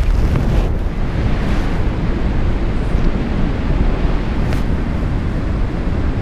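Airflow buffeting an action camera's microphone during a paraglider flight: a steady, loud rushing wind noise.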